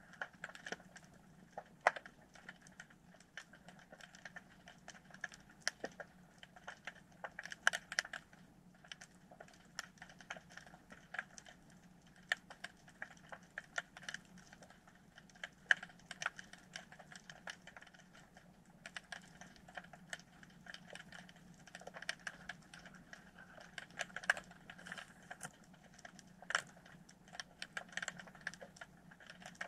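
Underwater ambience at a rocky seabed: irregular sharp clicks and crackles, a few much louder than the rest, over a faint steady low hum.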